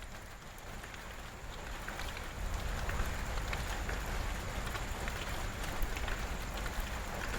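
Heavy rain falling steadily, with many small drop splats and a low rumble that grows louder about two and a half seconds in.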